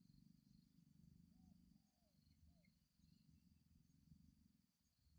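Faint spotted dove cooing: one three-note coo about a second in, over a steady high insect drone and a low rumble.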